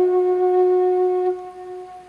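Flute holding one long, steady note that fades away about a second and a half in.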